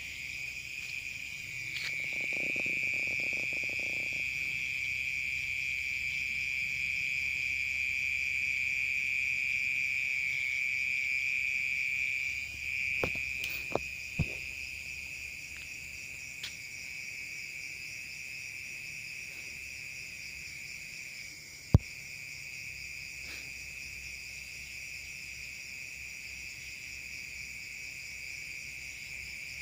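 A night chorus of crickets: a steady, unbroken high trill. A few faint clicks come near the middle, and one sharp click about two-thirds of the way through.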